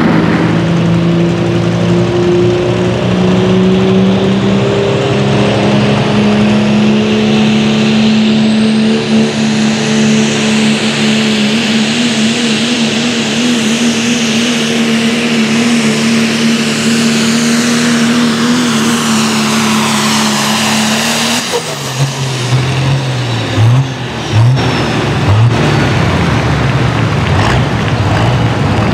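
Turbocharged pro stock diesel pickup truck under full throttle pulling a weight-transfer sled, its engine running loud and steady with a high turbo whistle that climbs in pitch. About 21 seconds in the engine drops off to a lower, uneven idle with a few brief throttle blips as the pull ends.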